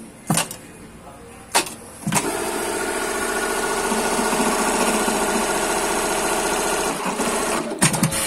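SERA 9820-02 electronic eyelet buttonhole machine running through a sewing cycle: a few clicks, then about five seconds of fast, steady stitching over a motor hum, then several sharp clacks near the end.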